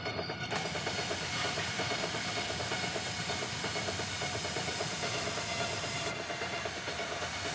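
Steady hiss of gas sprayed from a pressurised canister through a wand into a ceiling air vent, starting about half a second in.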